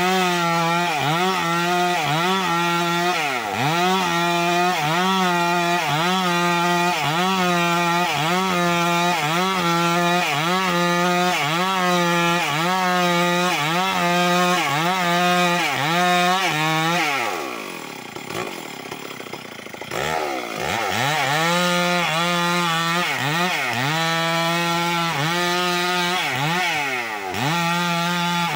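Two-stroke chainsaw at full throttle ripping a suren log lengthwise along the grain, its engine note dipping and recovering in a quick, regular rhythm under load. About 17 seconds in the throttle is let off and the saw drops to a lower idle for about three seconds, then revs back up and resumes cutting.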